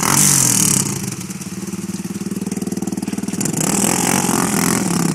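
ATV engines running through shallow mud and water, their pitch rising and falling as the riders work the throttle. A loud rushing hiss comes in briefly at the start and again about three and a half seconds in.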